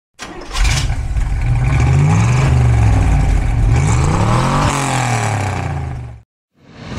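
Chevrolet Corvette C2 Sting Ray's 327 small-block V8 revving, climbing and dropping twice, then cutting off suddenly about six seconds in.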